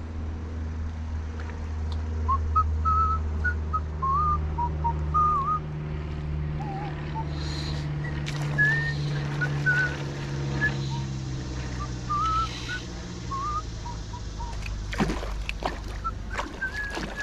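Short, wavering whistled notes come and go over a low drone that rises and falls. About fifteen seconds in, a hooked brown trout thrashes and splashes at the surface.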